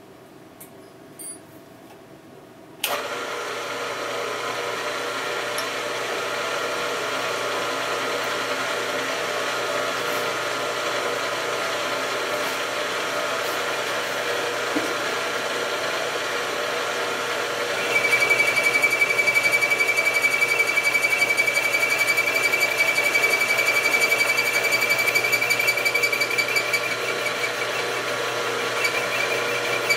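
Milling machine spindle driving a boring head switches on about three seconds in and runs steadily. About 18 seconds in, the boring tool starts cutting the worn shaft hole in the lathe apron, and a steady high-pitched ringing tone joins the motor, louder than before.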